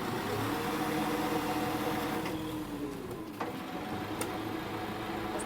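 An engine running at a steady speed, its pitch drifting slightly up and then settling back over the first few seconds.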